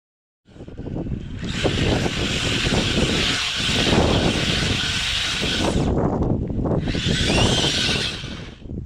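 Small brushless electric motor of an RC car whining at speed, with tyre and wind noise. It starts about half a second in, then rises and falls twice as the car speeds up and backs off.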